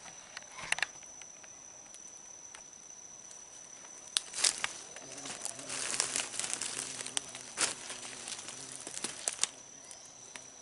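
Rustling and crinkling with sharp clicks, thickest in the second half, over a steady high-pitched insect whine.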